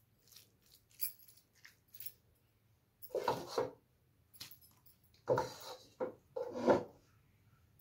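A wooden spoon scraping and scooping thick roti halwa in a glass bowl: light taps against the glass, then three short rasping scrapes in the second half.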